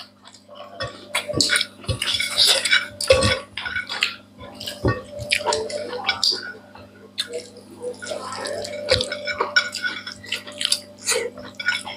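People eating rice and curry with their hands: wet, sticky smacks and squelches as fingers mix and scoop food on their plates, along with chewing and lip smacking, in a dense irregular run of short sounds over a faint low hum.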